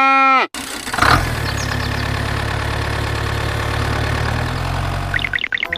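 A cow's moo ends about half a second in. After a short gap an engine starts with a sudden onset and runs steadily at idle for about four seconds.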